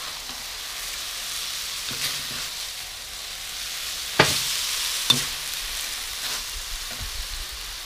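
Rice vermicelli and water mimosa sizzling in a hot steel wok as they are stir-fried, with the metal spatula scraping and knocking against the wok. The loudest knock comes about four seconds in, another about a second later.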